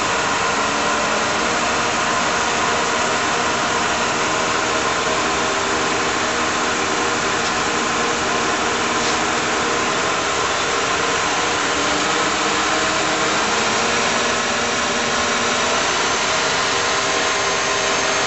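1943 Monarch 10EE lathe running under its motor-generator drive: a steady mechanical whir with several steady whining tones, a few of which shift in pitch partway through.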